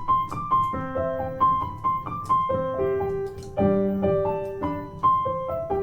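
Piano playing a school bell melody: a tune of single notes with a repeated high note, over chords in the bass.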